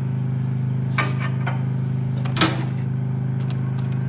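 Light metallic clinks of loose bolts and hand tools being handled, three short ones about a second, a second and a half and two and a half seconds in, over a steady low hum.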